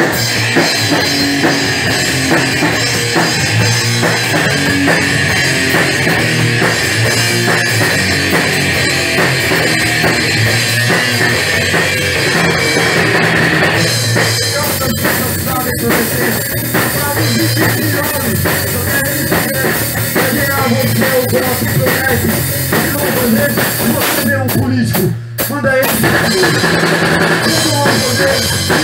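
A punk rock band playing: electric guitar, bass and a Pearl drum kit at a steady loud level, with a momentary break about 25 seconds in.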